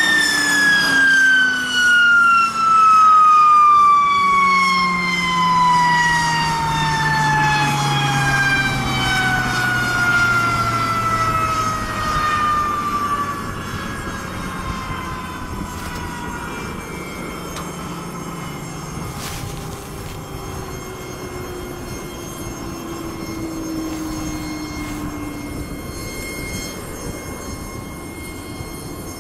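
Hawker Siddeley HS748's Rolls-Royce Dart turboprop spooling down at the end of an engine run. A high whine falls steadily in pitch and fades over about fifteen seconds, with a lower drone falling beneath it.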